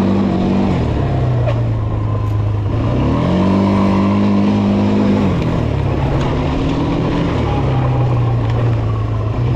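ATV engine running while riding, the revs dropping about a second in, climbing about three seconds in and holding, then falling and picking up again as the throttle is worked.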